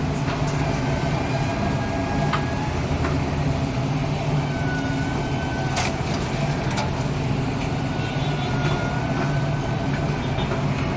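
Squeezer separator machine running steadily as it shreds and squeezes cough syrup pouches: a continuous machine hum with a few sharp clicks or knocks along the way.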